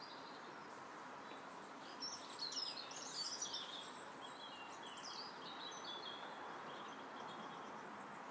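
Birds singing: bursts of high chirps about two seconds in and again around five seconds, over a faint steady hiss of background noise.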